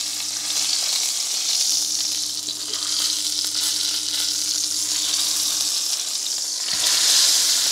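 Steak sizzling in melted butter in a cast iron pan as its edges and fat cap are seared, held on end with tongs. The sizzle swells near the end, over a steady low hum.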